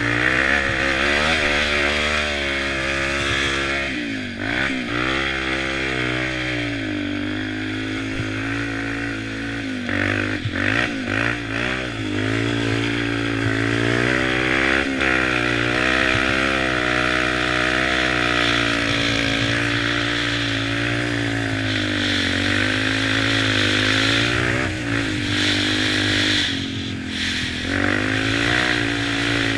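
2006 Yamaha Raptor 350 ATV's single-cylinder four-stroke engine running while the quad is ridden, its pitch rising and falling with the throttle, with quick revs about four to six seconds in and again around ten to twelve seconds in.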